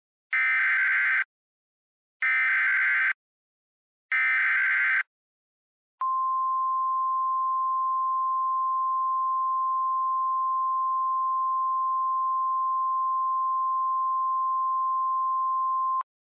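Emergency Alert System SAME header: three short bursts of warbling data tones, about a second apart. They are followed by ten seconds of a steady single-pitch alarm tone, the NOAA Weather Radio style warning tone, which cuts off sharply. Together they signal the start of a new emergency alert.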